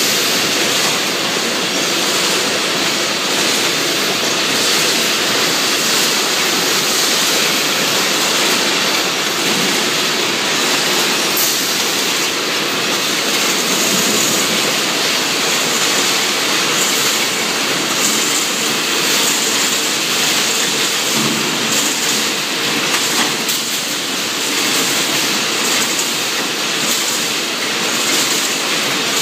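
Automatic wire mesh panel welding machine running: a steady, loud mechanical noise with many faint rapid ticks, as line wires are drawn off coils and welded into mesh.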